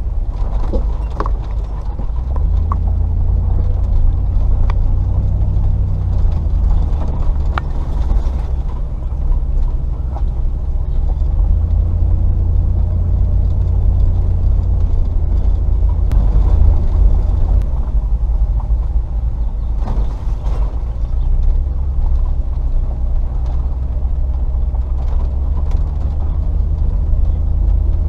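Range Rover P38's 4.0-litre V8 running at low revs, a steady low drone that rises and falls a little, with scattered knocks and rattles.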